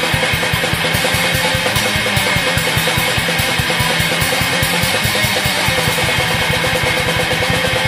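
Raw black metal recording: heavily distorted electric guitar over a fast, steady run of drum hits, with a dense, fuzzy sound.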